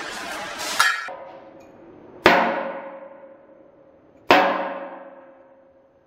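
A second of scraping on metal ending in a knock, then two hard hammer blows on a steel tube about two seconds apart, each ringing with a clear tone that fades slowly.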